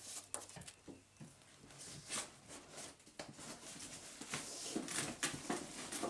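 Cardboard box being handled: scattered rustles and scrapes of the flaps, with a few light knocks.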